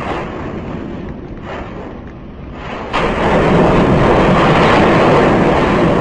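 Steady rushing roar of the erupting Fagradalsfjall volcanic vent as it fountains lava. It surges louder about three seconds in.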